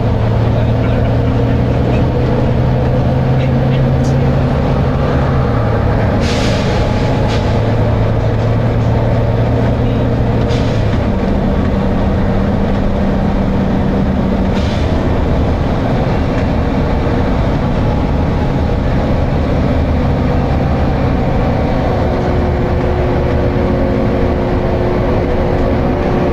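Volvo B9TL double-decker bus's diesel engine running hard under load, with the cooling fan on; the engine note shifts in pitch a few times. Short air hisses from the bus's pneumatic system come about 6, 10 and 15 seconds in.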